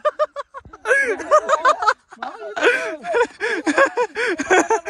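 Several young men's voices laughing and shouting excitedly, high-pitched and overlapping, with a short break about two seconds in.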